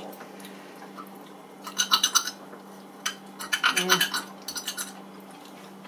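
Metal forks clinking and scraping on glass plates as pizza is cut and picked up, in two short clusters of rapid clicks about two and four seconds in. A brief hummed 'mm' comes near four seconds, over a steady low hum.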